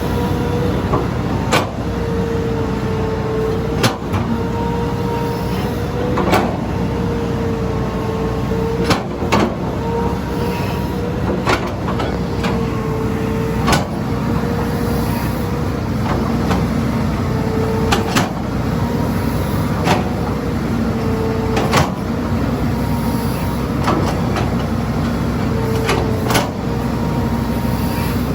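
Hitachi Zaxis excavator running steadily under load while digging soil and rock, with a wavering whine over the engine and sharp knocks every couple of seconds.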